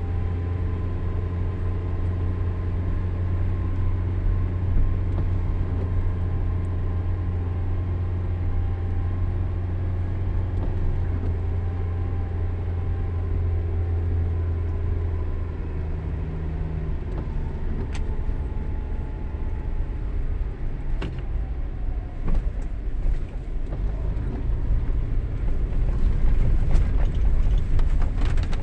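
Car engine pulling in low gear up a steep hill road, a steady low drone. About halfway through its note shifts, and it grows rougher and louder toward the end, with a few sharp clicks and knocks.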